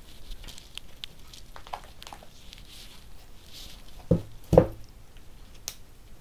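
Light handling sounds: faint rustling and small clicks, with two soft knocks in quick succession about four seconds in.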